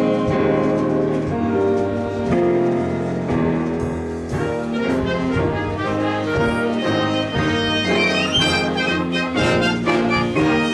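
Church band and orchestra with brass section playing an instrumental piece, trumpets and trombones carrying held chords, becoming busier with quicker notes in the second half.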